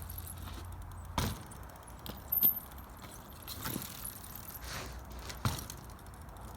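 Mountain bike rattling and clanking as it is ridden, with several sharp knocks; the loudest comes about two and a half seconds in.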